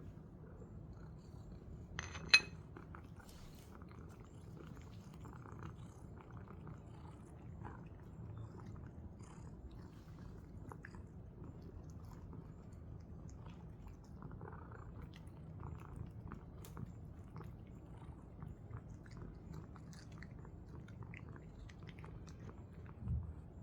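British Shorthair cat chewing and crunching treats: a long run of small soft clicks, with one brief, high meow about two seconds in and a low thump near the end.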